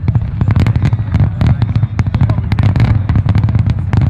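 Fireworks going off in quick succession: a dense string of sharp pops and crackles over a steady low rumble.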